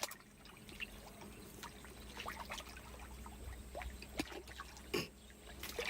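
Spring water pouring and trickling steadily into a pond from its inlet channel, with scattered short ticks, the loudest about five seconds in.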